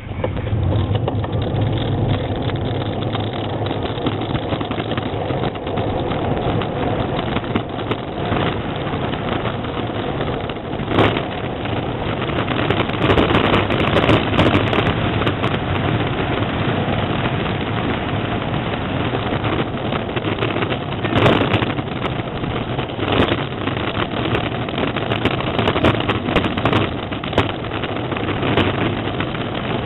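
Engineless gravity racer (carrilana) rolling fast downhill, heard from its on-board camera: a steady noise of wind on the microphone and tyres on asphalt. Sharp knocks and rattles from the chassis come in bunches, mostly in the middle.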